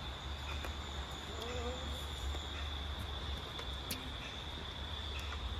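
Outdoor ambience: a steady high-pitched whine over a low rumble, with a faint distant voice and a few sharp clicks.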